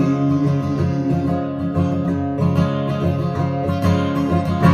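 Acoustic guitar playing the closing instrumental bars of a country song, picked notes and strums, ending on a loud strummed chord that rings out.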